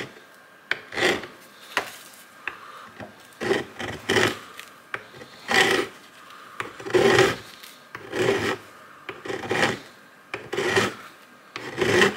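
Hand file rasping across the steel front sight block of an AK pistol in about ten separate strokes, roughly one a second, filing off the bump left by a cut tack weld.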